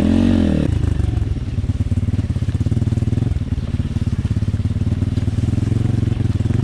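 Single-cylinder four-stroke engine of a 150cc-swapped Apollo RFZ pit bike, blipped in a quick rev that rises and falls right at the start, then running steadily at low revs as it picks through the brush.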